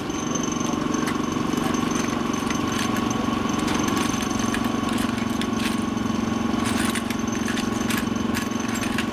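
A small engine or motor running at a steady, unchanging speed, with light ticks and rattles over it.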